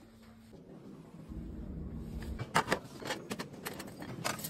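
Lift car running: a steady hum with a low rumble, and a few sharp clicks and knocks in the second half.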